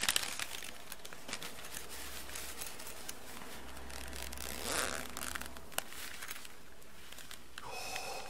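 Clear plastic bag crinkling and rustling as a soft zippered knife pouch is handled and opened, with many small scattered clicks and a louder rustle about five seconds in.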